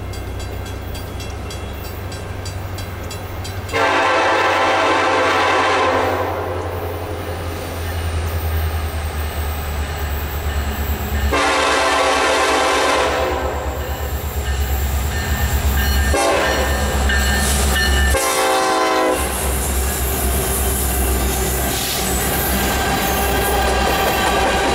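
Air horn of a Norfolk Southern SD70ACe diesel locomotive sounding four blasts as the train approaches: two long, then a shorter one and a brief last one, over the steady low drone of the lead units' diesel engines. Near the end the empty coal hopper cars roll past with a clickety-clack.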